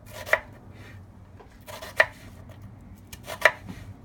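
Kitchen knife slicing through an onion and knocking on the cutting board, three main strokes about a second and a half apart.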